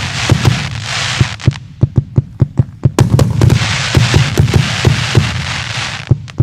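A 150-shot fan firework cake firing: rapid launch shots about three or four a second. Over them come two long stretches of crackling hiss from crackling chrysanthemum effects, one in the first second and a half and a longer one from about three to six seconds in.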